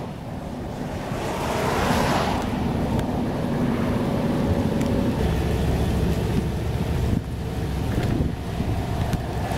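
Gusty wind buffeting the microphone over highway traffic: a car's tyre noise swells about two seconds in, and a heavier vehicle's low rumble builds from about five seconds in.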